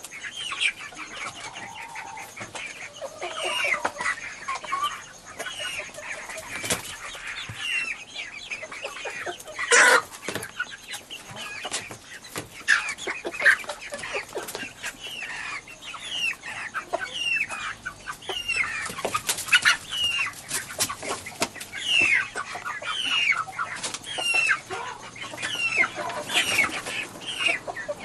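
A flock of domestic chickens clucking and calling continually, many short falling calls overlapping, with a few sharp knocks among them.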